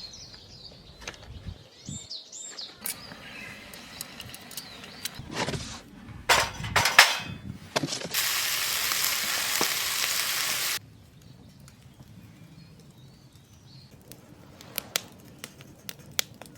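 Picnic dishes and cutlery being handled, with scattered clicks, clinks and knocks. About eight seconds in, a steady hiss like food sizzling in a pan runs for nearly three seconds and cuts off sharply. A few light clicks follow.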